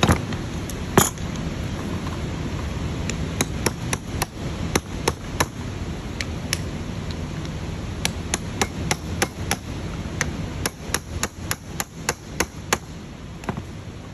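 Hammer striking the metal of a diesel EGR valve actuator assembly on the bench, tapping a stuck part to work it loose: two hard blows in the first second, then lighter strikes, scattered at first and then coming about three a second, stopping shortly before the end. A steady low hum runs underneath.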